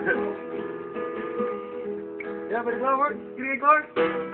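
Acoustic guitar strumming steady chords. From about halfway through, a voice cuts in with short rising-and-falling wordless calls over the guitar.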